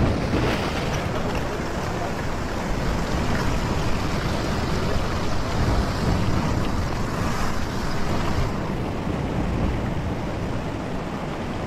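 Ocean swell surging and washing over a rock ledge, with a louder wash near the start, and wind buffeting the microphone.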